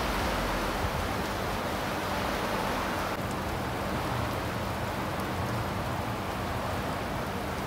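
Steady heavy rain falling on a wet street and roof, a constant even hiss.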